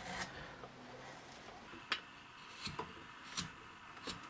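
Carving gouge cutting a wooden blank by hand: about half a dozen short, faint, crisp cuts, spaced unevenly, as chips are pared off with twisting strokes.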